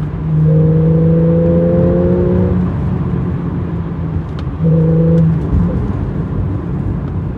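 Porsche 911 Carrera GTS (991.1) naturally aspirated 3.8-litre flat-six with sport exhaust, under throttle, its note rising slowly for a couple of seconds. It then eases off to a lower engine and road rumble, with a second short burst of throttle about five seconds in.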